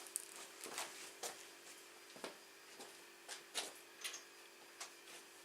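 Scattered light clicks and knocks, about ten at uneven intervals, of tools and parts being handled during work on a motorcycle's rear brake, over a faint steady hum.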